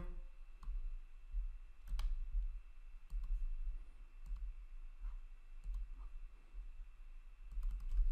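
Scattered sharp clicks of a computer mouse and keyboard, a few at a time with a quick cluster near the end, over a steady low hum.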